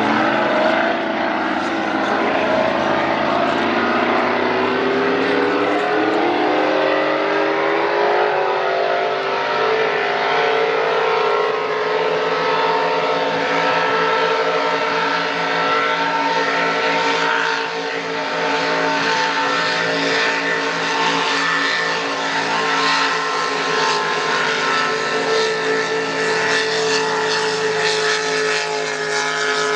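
Boat engine running hard at high revs. Its pitch climbs over the first several seconds, then holds steady as a continuous drone.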